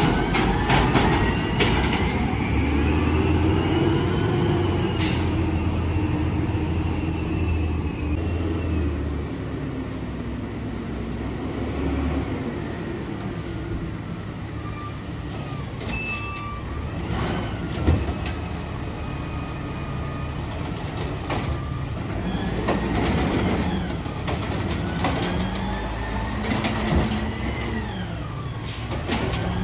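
Compressed-natural-gas Peterbilt 320 garbage truck with an Amrep HX-450 automated side loader, its engine revving up and down as the truck moves between stops and works the hydraulic lift arm. There is one sharp clank a little past halfway.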